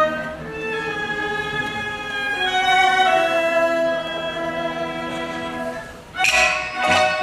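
Theatre accompaniment music: bowed strings play a slow melody of long held notes. About six seconds in, a louder, fuller passage enters with sharp percussive strikes.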